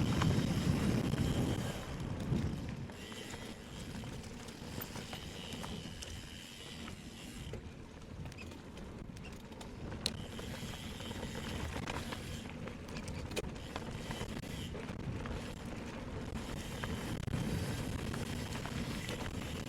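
Electric mountain bike being ridden over a forest trail: tyres rolling on dirt, with small rattles and clicks from the bike and wind rumbling on the microphone, heaviest in the first couple of seconds.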